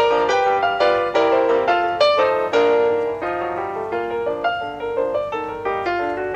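Background piano music: a gentle melody of struck notes, several a second, each ringing and fading.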